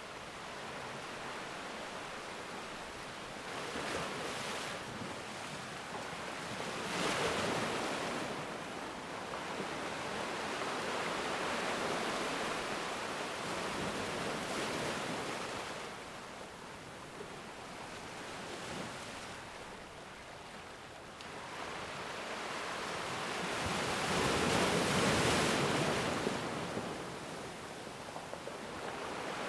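Ocean waves breaking and washing in, a steady rush of surf that swells several times, most strongly about a third of the way in and again near the end.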